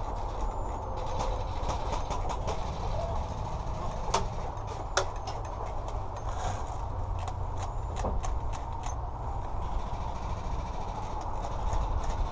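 Sharp single cracks of airsoft guns firing: one about four seconds in, another a second later, and a quicker run of shots a few seconds after that. Under them a steady low rumble of wind and movement on the microphone.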